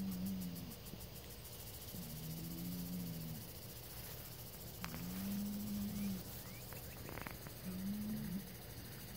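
Dexter bull bellowing four times, each call low and drawn out over about a second, with the first already under way. The bull is aggravated and calling toward a neighbouring bull across the fence.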